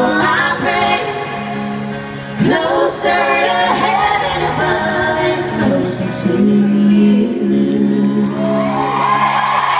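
A live country band plays the closing bars of a song with sung vocals, and the sound rings through a large arena hall.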